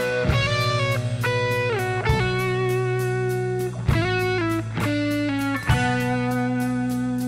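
Background music: an electric guitar plays a bluesy melody of sliding, stepping notes over a held low bass note, with a light tick repeating evenly above it.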